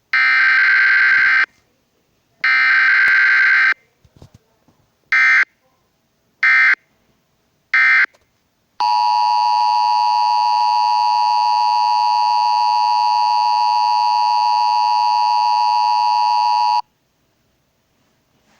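Emergency Alert System tones: two harsh, screeching bursts of the SAME digital header, then three short data bursts, then the steady two-tone EAS attention signal held for about eight seconds before it cuts off.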